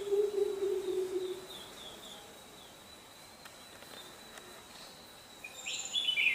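Greater coucal giving its deep series of hoots, which ends about a second and a half in. Short high chirps of bulbuls follow, with a louder chirp near the end, over a thin steady high tone.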